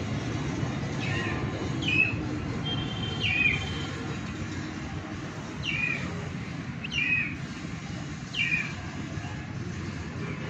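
A young chicken peeping: about half a dozen short, falling peeps spaced a second or more apart, over a steady low rumble.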